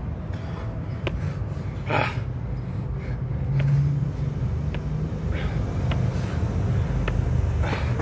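Steady low rumble of street traffic, with a few light taps of sneakers landing on the court and two sharp, breathy exhalations, one about two seconds in and one near the end, from a man doing repeated drop squats.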